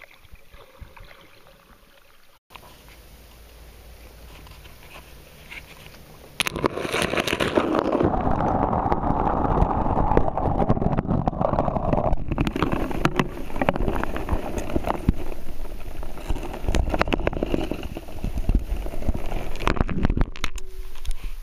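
Turbulent water sloshing and bubbling, heard muffled through a waterproof camera, full of small clicks and knocks. It is faint at first, then starts abruptly and loudly about six seconds in.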